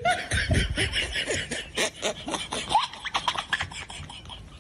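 A Shiba Inu dog and a black cat tussling on bedding: rapid scratching and rustling, with a few short squeaky calls scattered through it.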